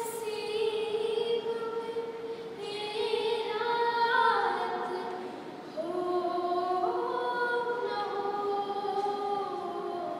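A young woman singing a song unaccompanied, holding long notes and stepping between pitches, with a wavering, ornamented run in the middle.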